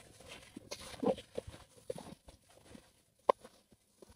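A plastic-gloved hand tossing cut carrot, jicama and tofu with seasoning in a stainless steel bowl: soft, scattered rustles and small clicks, with one sharper click about three seconds in.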